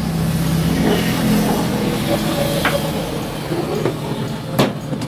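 Light handling of a multimeter and tools on a wooden workbench, with a single sharp knock near the end, over a steady low engine hum in the background.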